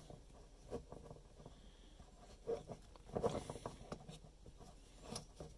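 Faint handling sounds of fingers tying a knot in a braided starter cord at a plastic pull handle: light rustling with small clicks and taps, a little louder about three seconds in.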